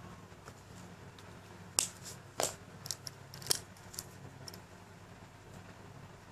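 A lipstick tube and its cap being handled, about six sharp clicks in quick succession in the middle as the cap comes off and the tube is worked. A faint low hum lies underneath.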